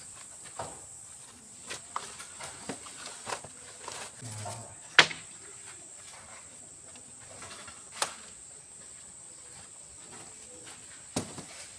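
Scattered sharp knocks and clicks, the loudest about five seconds in and others near eight and eleven seconds in, over a steady high-pitched whine.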